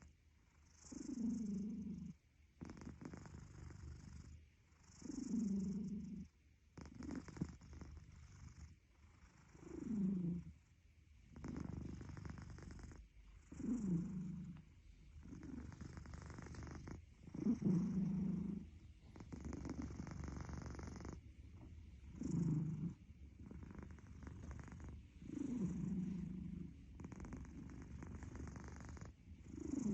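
A cat breathing with a rhythmic rumble, one cycle about every four seconds. Each cycle has a louder stretch of about a second that falls in pitch, then a softer, longer rumble.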